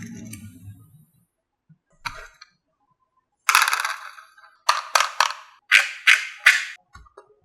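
Marbles on a HABA marble run: a low rolling rumble in the first second, then a single click, then a loud clatter followed by about six sharp clacks in quick succession as marbles strike the track and each other.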